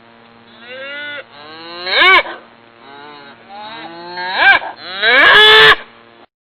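A large animal calling about five times, each call a drawn-out cry that rises and then falls in pitch; the longest and loudest call comes near the end.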